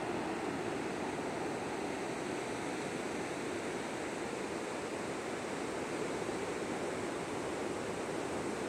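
Ocean surf breaking and washing on a beach, a steady even rush of waves.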